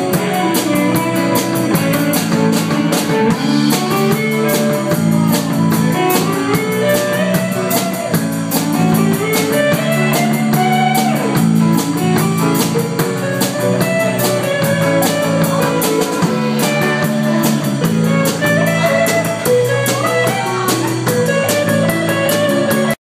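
Live rock band of electric guitar, keyboard, bass and drum kit playing an instrumental passage, a lead line gliding up and down over steady drums and bass.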